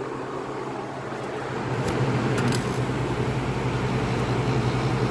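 1999 Whirlpool 6,000 BTU window air conditioner running on its fan, then about two seconds in, after a few clicks, the compressor comes on and the unit gets louder with a steady low hum as it goes into cooling.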